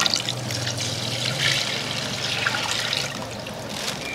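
Thin coconut water pouring in a steady trickle from a plastic bag into a large metal pot of curry.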